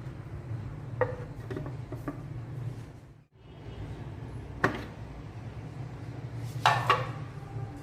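A few sharp clinks and knocks of kitchen utensils against dishes, the loudest cluster near the end, over a steady low hum; the sound briefly cuts out partway through.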